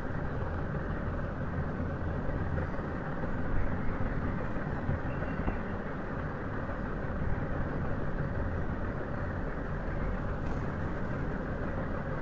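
Steady low background rumble with a faint hiss, even throughout and without speech.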